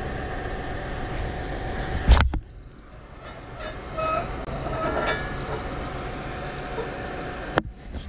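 Farm vehicle engine running steadily in the background while a tail light's set screw is worked loose by hand with a small wrench, with a sharp knock about two seconds in, a few faint metallic clinks, and a click near the end.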